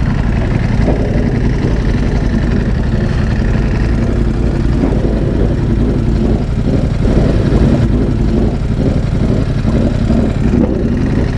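Sport motorcycle engine idling steadily.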